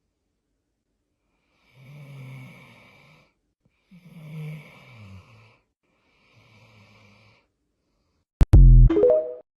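A person snoring: three long snores about two seconds apart, the second sliding down in pitch. Near the end comes a sudden, much louder sound that rises in pitch and cuts off within about a second.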